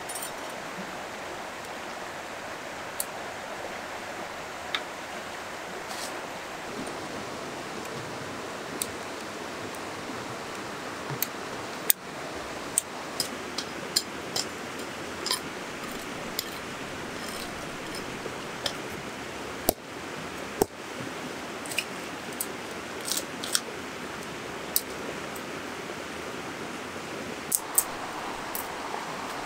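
River rushing steadily, with scattered sharp metallic clicks and clinks from a folding steel camp grill stand and grate being unfolded and fitted together, more frequent in the second half.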